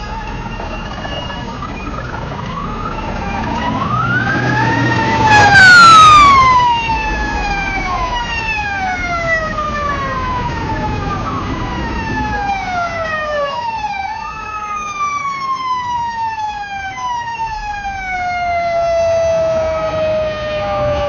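Fire truck siren winding up to a peak about five seconds in, with a loud burst at the top. It then slides down in a series of long falling sweeps, each picking up slightly before falling again, over a low rumble.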